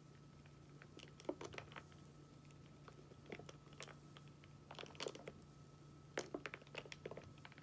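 Spoon scooping milk foam in a glass latte cup: faint scrapes and light clicks against the glass in four short clusters, over a steady low hum.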